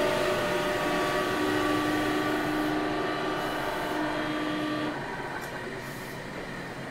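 Onboard running sound of a Sendai City Subway 1000N series train: a steady whine of several held tones over rolling noise, which drops in level about five seconds in.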